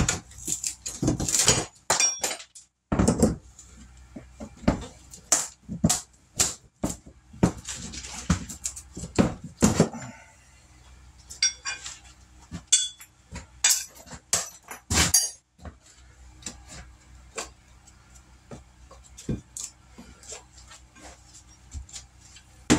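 Irregular knocks and metallic clinks of hand tools against metal fittings during bathroom demolition, some strikes ringing briefly. The strikes come thick and fast for about ten seconds, then grow sparse.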